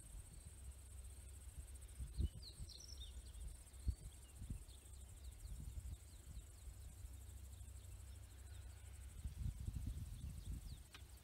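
Quiet pond-side ambience: a steady high insect buzz, with a few short bird chirps a few seconds in. Under it runs a low rumble with a few soft thumps.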